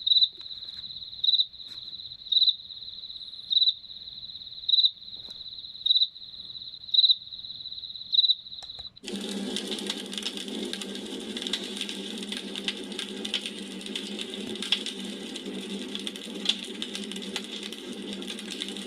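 A cricket chirping with a steady high trill that swells into louder pulses about once a second. About halfway through it cuts off abruptly, and a crackling campfire takes over: a steady hiss full of sharp pops and crackles.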